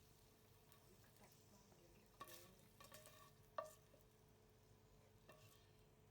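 A few faint clinks and scrapes of a metal spatula against a frying pan, about four, as fried chicken pieces are lifted out of the hot oil; otherwise nearly quiet.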